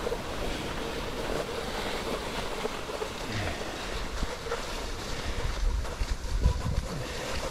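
Cross-country skis hissing steadily as they glide along a snow track, with wind buffeting the microphone in low gusts that get stronger in the second half.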